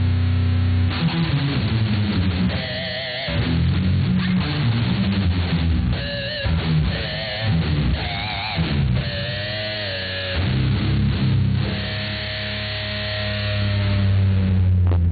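Electric guitar played solo: a held low chord, then fast lead runs with several held notes shaken in wide vibrato, a long sustained note, and a ringing low chord near the end.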